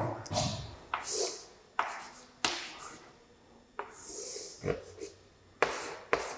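Chalk on a blackboard drawing straight lines: a string of short strokes and taps, each starting sharply and fading, with a longer high scrape about four seconds in.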